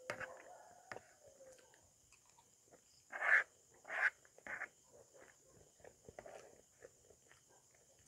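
Spoon and fork clicking and scraping against a plate while scooping rice, with three louder scrapes a little after three seconds in, about half a second apart, over a steady high hiss.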